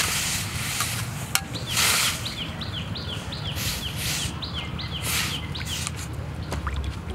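Metal spatula stirring sliced beef heart in a large iron wok, with wet scraping strokes against the pan. Near the middle a bird gives a quick run of short falling chirps, about three or four a second for a few seconds.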